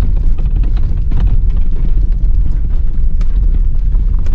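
Car crawling over a boulder-strewn mountain track: a continuous low rumble with scattered knocks and rattles as the wheels ride over the rocks and the body shakes.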